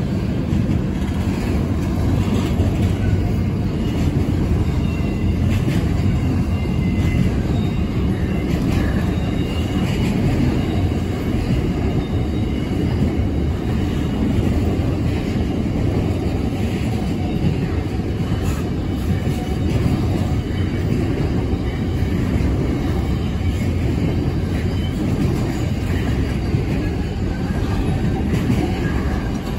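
Freight train's container wagons rolling past at steady speed: a continuous rumble of steel wheels on rail, with faint high wheel squeal coming and going and a few scattered clicks.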